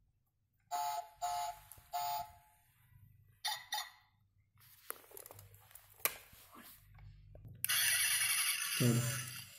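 Toy Lamborghini model's electronic sound unit playing through its small speaker: three short beeps, then two more, and near the end about two seconds of a louder, harsh, buzzy sound effect.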